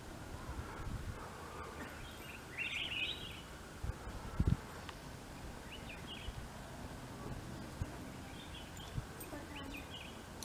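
Outdoor ambience: short bird chirps every few seconds over a steady background hiss, with a couple of brief low thumps about four seconds in.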